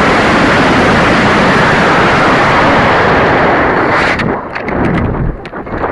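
Model rocket's solid-fuel motor firing: a loud, steady rushing hiss that cuts off suddenly about four seconds in. After it, wind buffets the microphone in uneven gusts.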